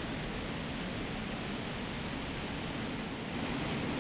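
Hermeus Chimera turbine-based combined-cycle engine running on a test stand: a steady, even rush of noise that grows slightly louder near the end.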